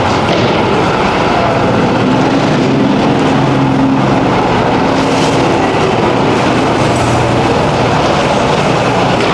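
Steady, loud rushing noise with a faint low hum that comes in about two seconds in and fades out around four seconds.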